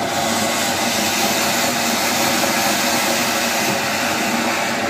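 Ground fountain firework (anar) spraying sparks with a loud, steady hiss.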